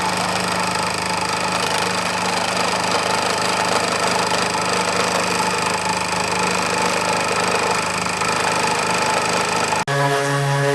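An engine running steadily at idle. Just before the end it cuts off for an instant and a different, steadier engine note takes over.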